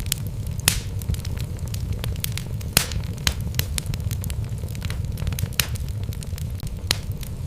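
Wood fire burning in a fireplace: a steady low rumble with irregular sharp crackles and pops from the burning logs, the loudest about two thirds of a second in and again near three seconds in.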